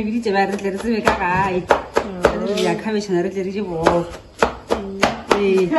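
A kitchen knife chopping cabbage on a cutting board, sharp strikes at an uneven pace of about two or three a second. A voice sings along over the chopping.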